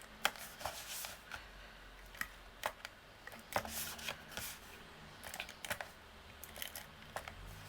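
Cardstock being handled and pressed by hand, giving scattered light clicks, taps and paper rustles at an irregular pace.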